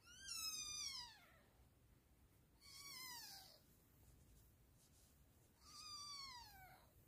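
Newborn kitten, about three days old, mewing: three thin, high cries, each falling in pitch over about a second, spaced about three seconds apart.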